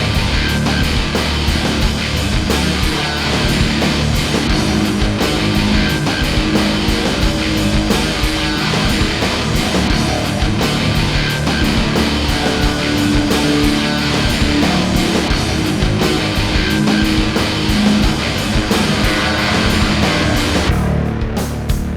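Loud rock music with distorted electric guitar and a fast drum beat.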